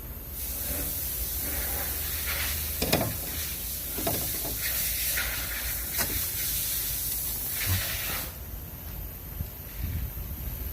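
A steady hiss starts abruptly, runs for about eight seconds and cuts off sharply, with a few light clicks and knocks over it.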